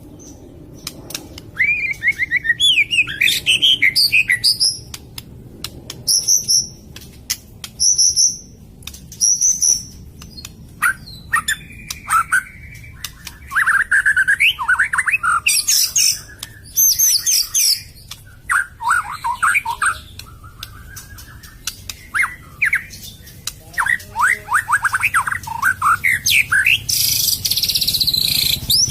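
White-rumped shama (murai batu) singing: a run of varied whistled and rapidly trilled phrases separated by short pauses, with a harsh, buzzy burst near the end.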